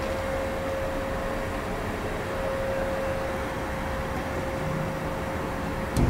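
Steady background noise with a faint, even hum running through it.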